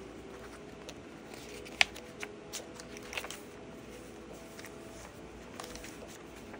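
Paper pages and a folded card in a handmade journal being handled: light paper rustling with a few short, sharp clicks. The loudest click comes a little under two seconds in.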